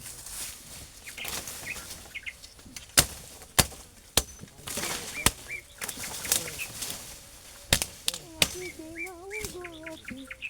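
Scattered sharp knocks and rustling, with a few short chirps and a brief wavering call near the end.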